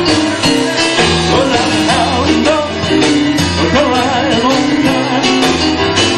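Live rock-and-roll band playing an up-tempo boogie-woogie number: piano-style electric keyboard, electric bass and drum kit, with a steady repeating bass line under it.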